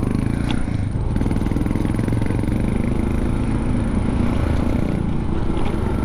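Honda Click 125i scooter's single-cylinder engine running at a steady road speed while riding, mixed with wind rumble on the camera microphone.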